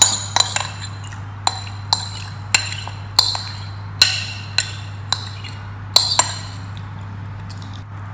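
A metal spoon knocking and scraping against a white serving bowl as curry is emptied onto a plate: about a dozen sharp, ringing clinks at irregular intervals, which stop about six seconds in.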